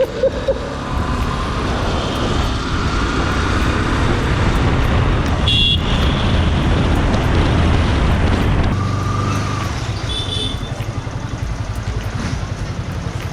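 Motorcycle riding through road traffic: a steady engine and road rumble that eases off about two-thirds through, with a couple of brief horn toots from traffic.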